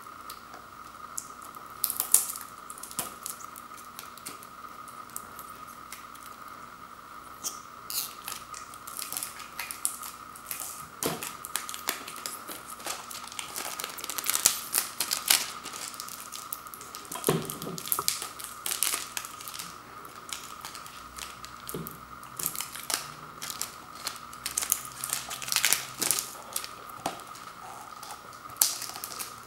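Cellophane shrink-wrap on a DVD case crinkling and crackling as fingers pick at it and peel it away, in irregular crackles that grow busier after about eight seconds, over a faint steady hum.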